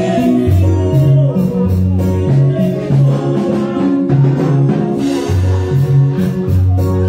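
Lively church praise music: a repeating bass line under a woman singing into a microphone, with other women singing along.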